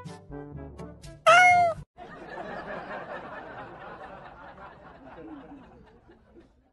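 A cat's meow: one loud call about a second in, rising then falling in pitch, over playful background music. It is followed by a noisy murmur that slowly fades out.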